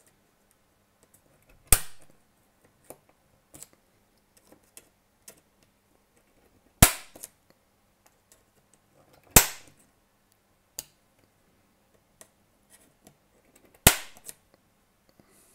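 Rivet removal tool pressed onto the keyboard rivets of a MacBook Air aluminium top case, giving four sharp snaps a few seconds apart, with faint ticks between them. Each snap is a rivet popping off.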